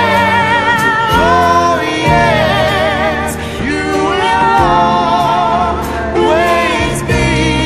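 Background music: a song with a voice singing long held notes with a wavering vibrato over the accompaniment.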